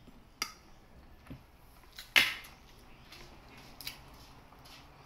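Sporadic eating sounds from a person at a table: a few soft clicks and taps, with one louder, short noisy sound about two seconds in.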